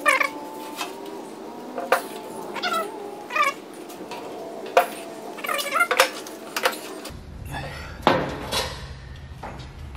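Hand-operated Woodward Fab sheet metal brake bending a steel patch panel: the leaf's pivots squeak in quick groups of short, wavering chirps, with several sharp metal clanks. A low steady hum comes in about seven seconds in.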